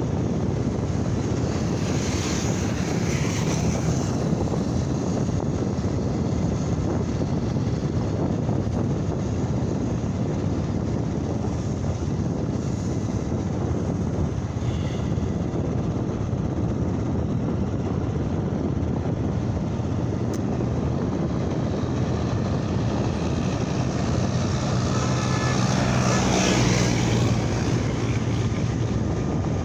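Steady rush of wind and road noise from a motorcycle moving along a highway, with its engine running underneath. Passing vehicles swell and fade a couple of seconds in and again near the end.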